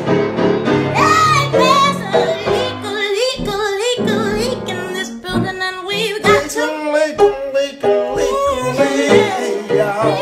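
A woman and a man singing a gospel song together, loud, with wavering vibrato runs.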